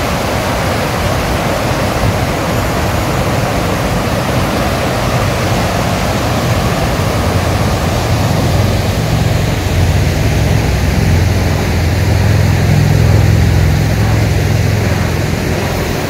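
Stream water rushing over and between a row of stepping stones, a steady roar of white water. A deeper low rumble grows stronger from about halfway.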